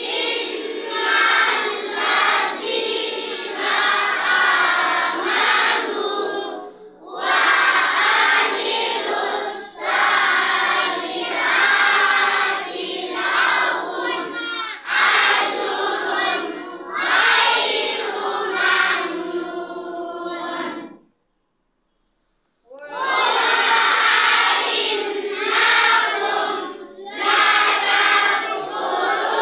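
Group of children reciting the Quran aloud together in a melodic chant, in phrases of a few seconds with short breaks between. The sound cuts out completely for about a second and a half roughly two-thirds of the way through, then the recitation resumes.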